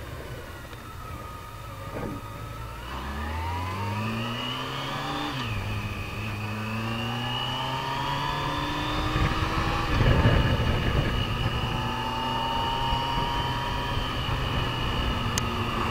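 Yamaha FJR1300's inline-four engine pulling away and accelerating through the gears. Its pitch rises, drops at a gear change about five seconds in, and rises again, then settles to a steady cruise from about ten seconds in under a rush of wind noise.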